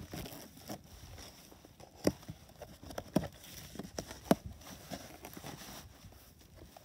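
Scissor blade slitting packing tape along a cardboard box, with cardboard rustling and several sharp clicks and knocks about two, three and four seconds in, as the box flaps are opened.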